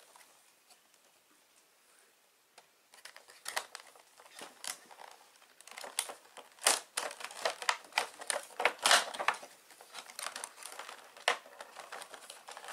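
Clear plastic packaging insert crinkling and crackling as it is worked out of a cardboard collectible-figure box. The crackles are irregular and start about three seconds in.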